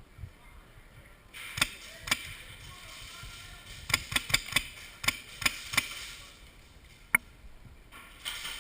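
Airsoft guns firing: a string of sharp snaps, two about a second and a half in, a quick cluster of four or so around four seconds, three more soon after and a last sharp one about seven seconds in.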